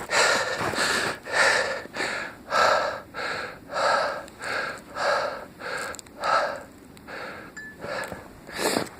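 A runner's heavy, rhythmic breathing: quick, hard breaths in and out, catching his breath after running a long way. The breaths ease and grow softer about two thirds of the way through.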